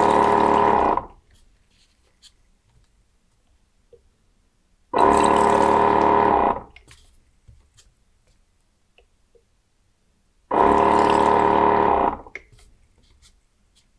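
The 12 V pump of a desktop liquid filling machine, in automatic mode, running with a steady hum for about a second and a half at a time, three times, roughly five and a half seconds apart. Each run is one timed dose into a small bottle, and the machine pauses between doses while the next bottle is placed.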